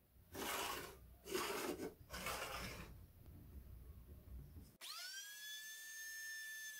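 A pencil scratching three short marking strokes on a pine board. About five seconds in, a trim router's motor spins up in a quickly rising whine and holds a steady high whine.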